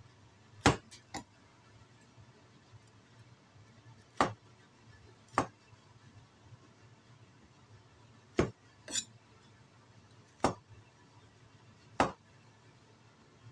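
A cleaver-style kitchen knife chopping through white button mushrooms onto a wooden cutting board: eight sharp, separate knocks, spaced irregularly from half a second to about three seconds apart.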